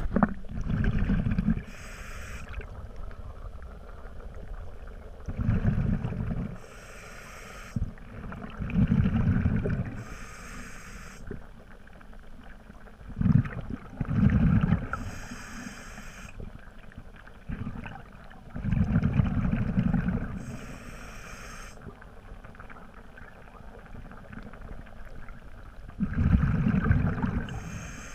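Scuba diver breathing through a regulator underwater: a bubbling rumble on each exhale, then a short hiss on each inhale, about six breaths in all, every four to seven seconds.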